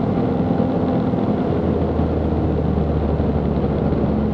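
Steady drone of the Zenith CH 750 Cruzer's 118-hp UL Power UL350i four-cylinder engine and propeller in cruise flight, heard inside the cockpit.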